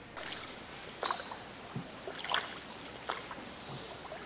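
Canoe paddle strokes, with water splashing and dripping about once a second, over a steady high-pitched drone of jungle insects.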